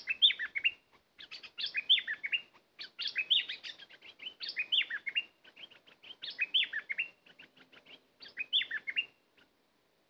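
A merbah lekir bulbul singing. It repeats a short, quick phrase of downward-sliding whistled notes about six times, roughly every one and a half to two seconds.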